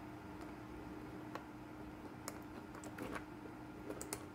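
Faint, scattered small clicks and ticks of fingers threading a small nut onto the control-knob shaft of a plastic welding helmet shell, over a steady faint hum.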